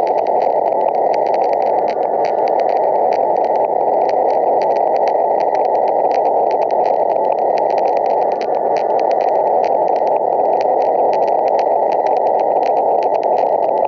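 Loud, steady static hiss, muffled and dull-toned, with fine crackling over it, like the noise of a broadcast alert with no signal.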